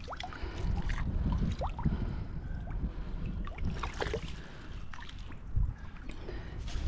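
Shallow river water splashing and sloshing around someone wading, with a steady low rumble underneath and a few small clicks.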